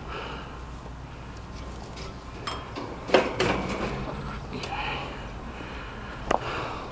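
A few short metallic clinks and knocks of tools and parts being handled, over a steady low hum.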